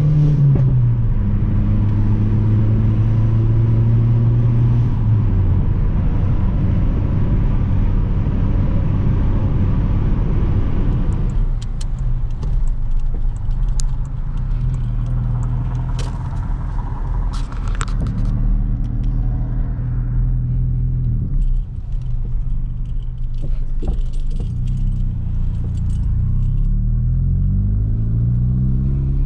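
Cabin sound of a Mk4 VW Golf GTI's turbocharged 1.8-litre four-cylinder engine and exhaust while driving. It holds a steady cruise, then eases off about ten seconds in, with light metallic jingling and clicks for several seconds. It revs up again near the end.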